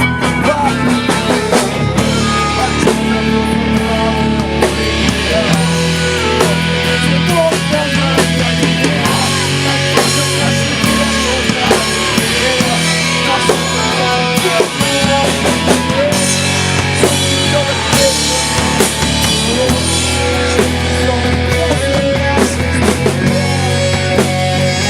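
Rock band playing an instrumental passage: drum kit, electric guitar and bass guitar, with the low bass notes changing every couple of seconds under bending guitar lines.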